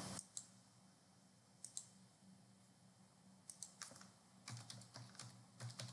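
Faint computer keyboard typing and mouse clicks: a few isolated clicks early, then a quick run of keystrokes over the last two seconds or so as a short word is typed.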